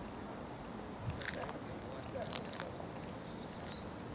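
Outdoor park ambience: a steady background rush with small birds chirping high and short, a few sharp clicks about a second and two seconds in, and faint distant voices.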